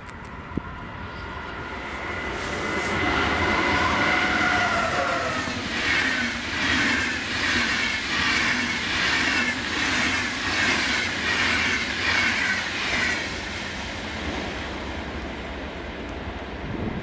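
An Intercity train hauled by a red electric locomotive passing through at speed. A few tones fall in pitch as the locomotive goes by, then the coaches rush past with a regular beat of wheels, a little under two strokes a second, which fades as the train leaves.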